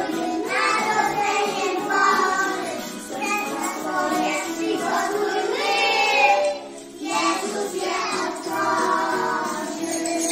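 Young children singing a lively Christmas pastorałka (Polish carol) in unison over an instrumental backing track, with a short break in the singing about seven seconds in.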